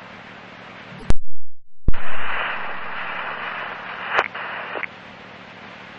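Police scanner radio static between transmissions: an open channel hissing, broken by sharp squelch clicks about a second in and just before two seconds. After the second click a keyed-up channel hisses with no voice, a faint steady tone running under it.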